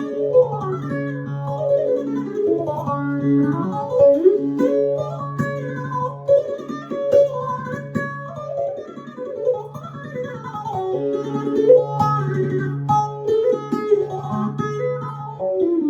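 Electric bağlama (Turkish long-necked saz) played: a fast picked melody over a steady drone on the lower strings, the drone dropping out for a few seconds midway.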